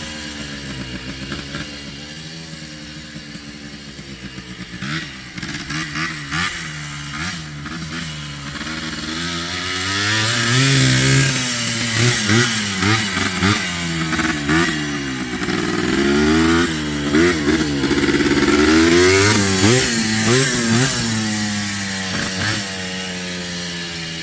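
Yamaha Blaster ATV's two-stroke single-cylinder engine running and being revved up and down over and over. It grows louder through the middle and eases off toward the end.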